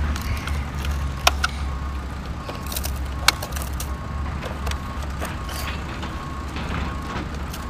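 A few sharp plastic clicks and the rustle of soil as a Bruder CAT toy excavator's arm and bucket are worked by hand, scooping sand and tipping it into a plastic toy dump truck bed, over a steady low background rumble.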